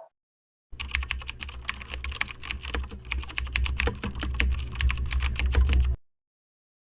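Typing on a computer keyboard: a fast, irregular run of key clicks over a low steady hum, starting abruptly about a second in and cutting off suddenly near the end.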